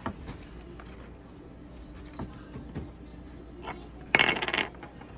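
Light clicks of small plastic Lego pieces being handled, then about four seconds in a brief, loud clatter of loose pieces rattling in a plastic Poké Ball half-shell.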